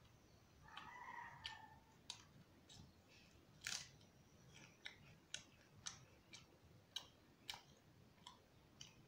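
Faint eating sounds: a dozen or so sharp, short mouth clicks and smacks of chewing roti with curry, spread unevenly. About a second in, a short call-like tone is heard for about a second.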